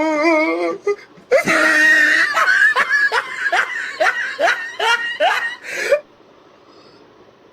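A person laughing hard: a loud outburst, then a run of short rising laughs about two a second that breaks off suddenly about six seconds in.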